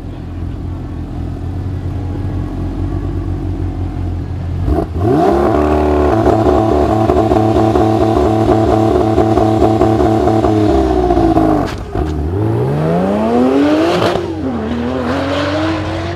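A supercar engine held at high revs for about six seconds, then dropping suddenly and pulling away with rising pitch, with one upshift about two seconds later: a launch-control launch and hard acceleration.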